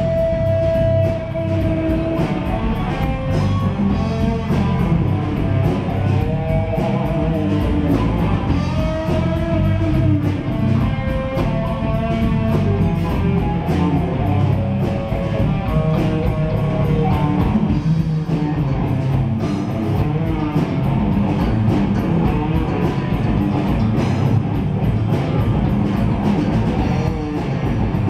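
Live rock band playing steadily, with electric guitar and a drum kit.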